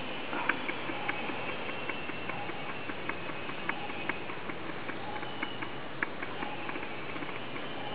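Light, irregular clicks and ticks, about three or four a second, over a steady hiss; the sharpest click comes about half a second in.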